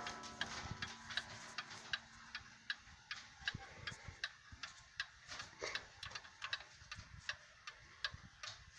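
Ansonia cast-iron mantel clock's open escapement ticking steadily, several ticks a second. For the first few seconds the clock's gong rings on from a single strike and fades away; the gong is softened, with its hammer set back from it.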